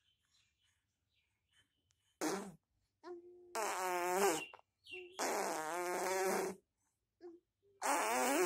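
Six-month-old baby blowing voiced raspberries: four buzzy vocal bursts with a wavering pitch, the middle two each about a second and a half long.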